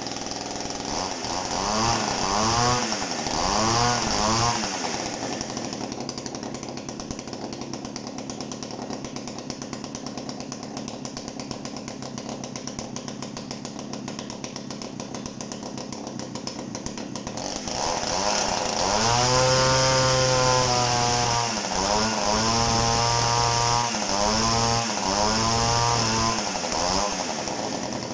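Dolmar CP two-man chainsaw's 4 hp two-stroke engine running. It gives a few quick revs, then a long steady idle. About two-thirds through it is revved up and held high, followed by several more throttle blips before it drops back to idle near the end.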